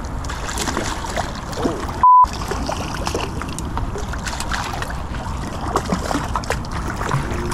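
Water splashing and sloshing as a hooked carp is fought in close to the bank, with scattered small clicks and knocks. About two seconds in, a short steady bleep tone cuts over everything and is the loudest sound.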